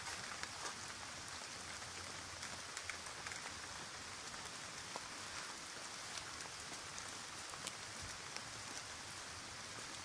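Steady rain falling through wet forest, with scattered single drops ticking close by.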